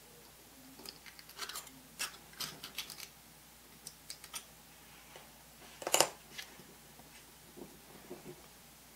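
Scattered light clicks and ticks of small hobby tools handling a small scale-model part being bent, with one sharper click about six seconds in.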